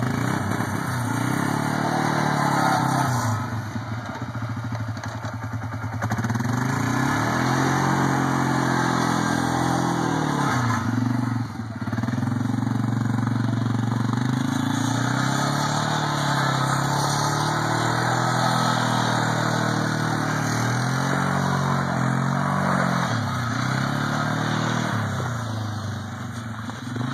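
ATV engine running under way, its pitch rising and falling again and again as the throttle is opened and eased off. There is a quieter stretch about four to six seconds in.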